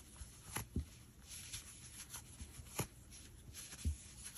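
Crochet hook working chunky acrylic yarn in single crochet: soft rubbing and rustling of the yarn with a few light clicks and taps, the loudest a little before the end.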